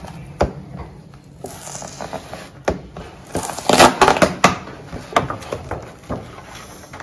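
Clear plastic packaging crinkling and rustling as it is peeled off a roller blind, with a few sharp clicks of handling. The crinkling is loudest and densest from about three and a half to four and a half seconds in.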